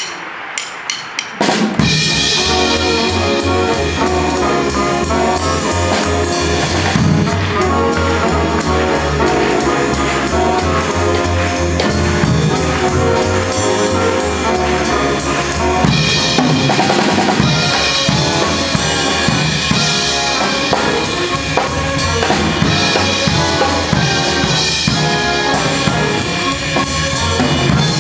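A drummer clicks his sticks together in a few evenly spaced clicks to count the band in. About two seconds in, the full big band comes in and plays jazz: drum kit, upright bass, piano, trumpets and saxophones.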